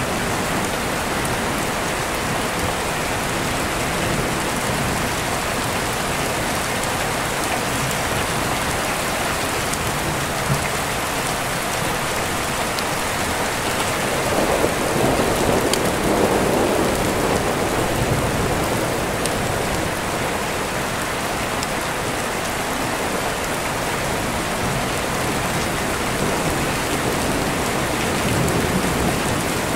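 Steady rain falling, with a rolling thunder rumble that swells in the middle and fades again over a few seconds.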